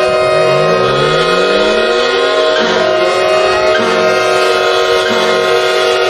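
Mock emergency alert alarm: a loud stack of steady electronic tones, with low tones gliding upward over the first two seconds or so, then a low tone that pulses about once a second.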